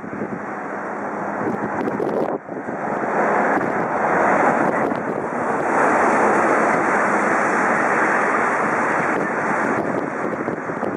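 Jet engine noise of a Boeing 777-300 on final approach with gear down: a steady rushing roar that grows louder as the airliner comes nearer.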